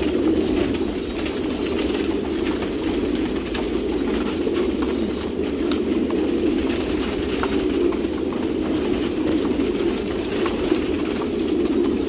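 Many caged domestic pigeons cooing at once in a steady, overlapping chorus, with scattered light clicks.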